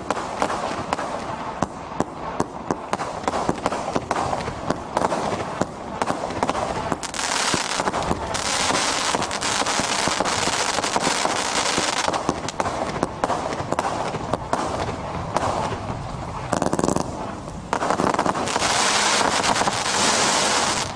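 A 136-shot firework cake firing: a rapid string of sharp shots that thickens about seven seconds in, and again near the end, into a dense, continuous crackle.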